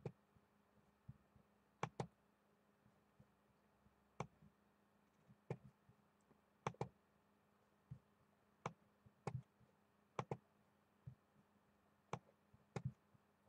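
Faint, sharp computer mouse clicks, roughly one a second, several coming in quick pairs, over a quiet room: a randomize button being clicked over and over.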